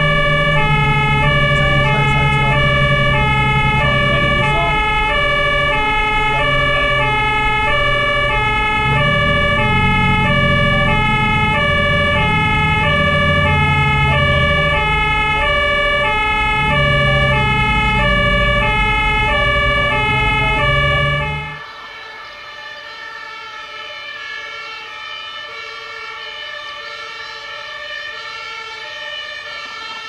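German two-tone fire-engine siren (Martinshorn) alternating steadily between two pitches, with a truck's diesel engine running loudly underneath. About two-thirds through, the engine noise drops away and the siren carries on quieter and further off.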